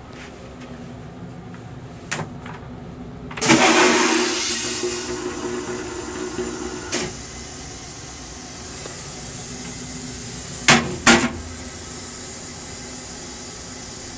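Long Island Rail Road M3 railcar toilet flushing: about three and a half seconds in, a sudden loud rush of water that tapers off over several seconds, over the steady running noise of the train. A couple of seconds before the rush there are light clicks. Near the end come two sharp bangs as the toilet lid is shut.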